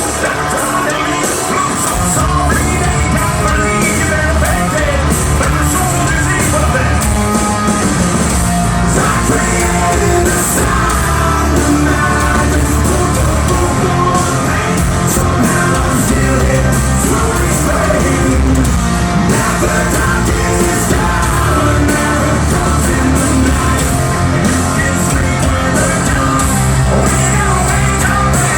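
Hard rock band playing live at full volume: distorted guitars, bass and drums, with a male lead vocalist singing and yelling. The heavy low end of bass and drums gets stronger about two seconds in.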